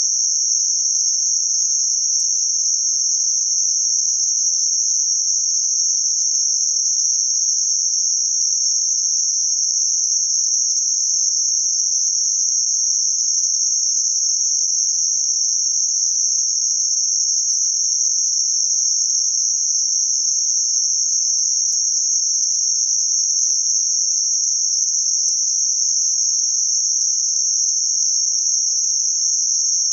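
Synthetic noise filtered to a narrow band centred on about 6051 Hz: a steady, unchanging high-pitched hiss.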